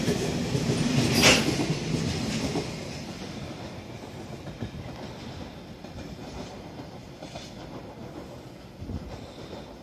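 Container freight train wagons rolling past with a clattering rumble and one brief sharp metallic noise about a second in. About three seconds in the noise drops off as the end of the train goes by, and it fades to a distant rumble as the train moves away.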